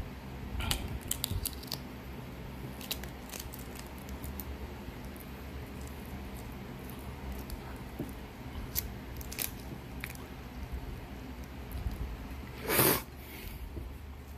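Balut duck eggshell being cracked and picked off with the fingers: scattered faint clicks and crackles. A louder short rush of noise comes near the end.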